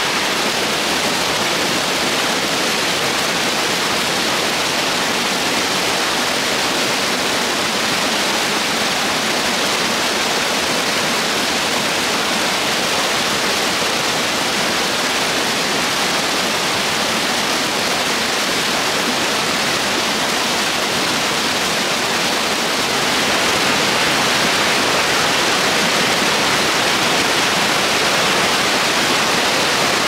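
River rapids: white water rushing steadily over rocks and a small waterfall, a little louder from about three-quarters of the way through.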